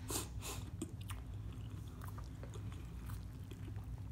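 Close-miked chewing of a shrimp po' boy: cracker-crusted air-fried shrimp on French bread. Two crunches near the start, then small wet clicks of chewing.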